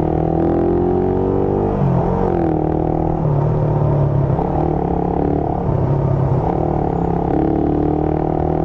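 Motorcycle engine running in slow traffic, picked up by a mic inside the rider's helmet. The engine note rises and falls several times as the revs change.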